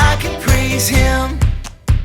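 Upbeat children's pop-style music: a melody over a steady beat that drops away about one and a half seconds in, leaving drum hits about twice a second.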